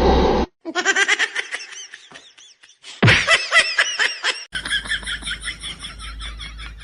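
People laughing in quick repeated bursts, in several short segments that cut off abruptly one after another.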